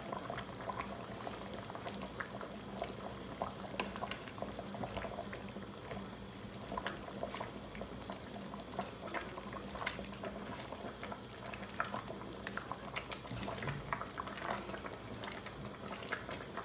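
Bamboo-shoot soup bubbling at a steady boil in a pot, a dense crackle of small pops and bursting bubbles, over a low steady hum.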